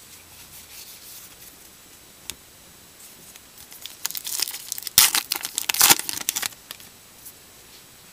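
A 2014 Topps Gypsy Queen baseball card pack being torn open, its wrapper ripping and crinkling loudly for a couple of seconds in the second half after quieter rustling.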